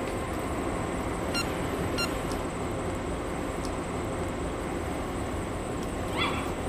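Steady outdoor background noise, with a short high squeak about six seconds in.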